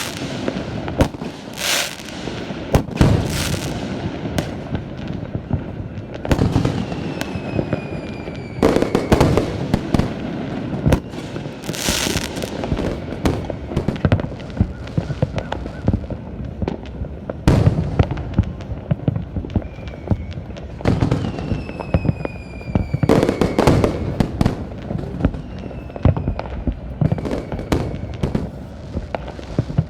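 Fireworks display: a dense run of booming bursts and crackling. Several whistling shells are heard, each whistle falling slightly in pitch.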